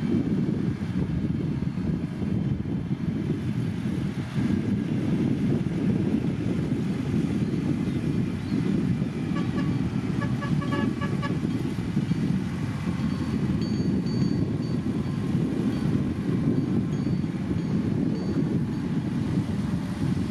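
Heavy diesel earthmoving machinery running steadily under load, a continuous low rumble. About halfway through comes a quick run of short repeated beeps or toots.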